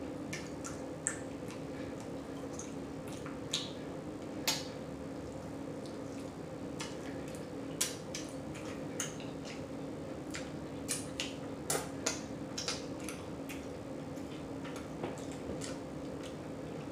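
Close-up chewing and lip smacking: scattered short, wet clicks at irregular intervals, over a steady low electrical hum.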